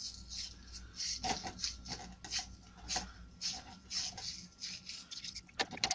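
Small bristle brush scrubbing the paint-caked metal body of a Devilbiss FLG 5 spray gun: a run of short, irregular scrubbing strokes as the gun is cleaned out.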